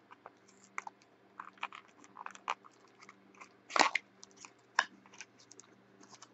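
A small cardboard trading-card box being opened by hand: a string of soft crackles and clicks as the packaging is worked open, the loudest about four seconds in.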